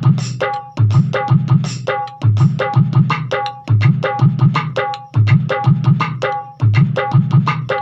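Roland Octapad SPD-20 Pro electronic percussion pad played with drumsticks, set to Indian drum sounds: a fast, repeating rhythm of deep bass strokes under short ringing higher strokes, much like a tabla.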